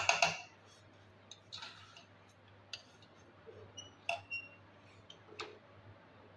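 Perforated steel skimmer stirring dry vermicelli in an aluminium pot, clinking and scraping against the metal at irregular intervals, loudest right at the start, with a few short metallic rings about four seconds in. A low steady hum runs underneath.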